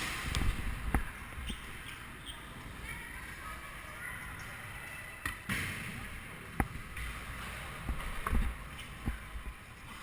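Scooter wheels rolling on hard ground with a low rumble, broken by several sharp knocks of the wheels and deck hitting the ground.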